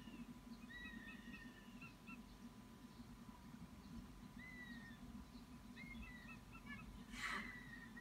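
Young raptors calling in the nest while they fight over prey: thin, downward-slurred whistled calls and quick little peeps, faint and repeated. About seven seconds in there is one short, loud, rasping burst.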